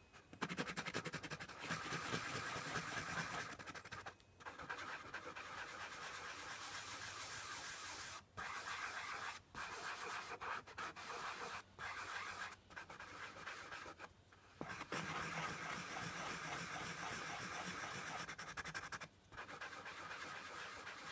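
Coloured pencil scratching on paper in rapid back-and-forth shading strokes, broken by short pauses every second or two.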